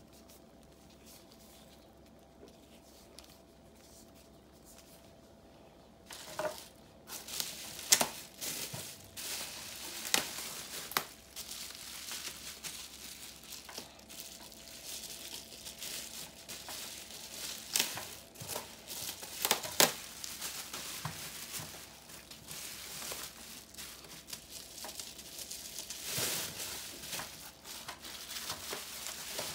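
Plastic bubble wrap crinkling and rustling as it is pulled open by hand, starting about six seconds in, with several sharp crackles.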